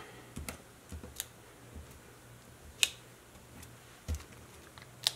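Hands handling cardstock pieces and pressing adhesive foam dots onto them: a few scattered light clicks and ticks, with a soft thump about four seconds in.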